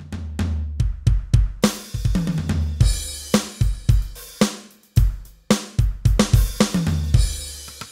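Drum samples triggered on a Roland SPD-SX sampling pad: a busy run of kick, snare and tom hits with falling tom pitches and deep, held bass tones under the kicks, and cymbal crashes washing over it twice.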